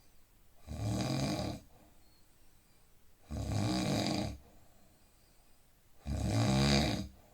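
A man snoring in deep sleep: three rough, pitched snores, each about a second long, coming evenly about every two and a half to three seconds with quiet breathing gaps between.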